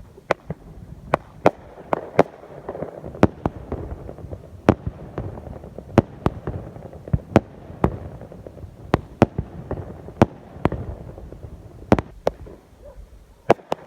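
Consumer fireworks going off: an irregular string of sharp bangs, often a few tenths of a second apart, with a rumbling echo between them.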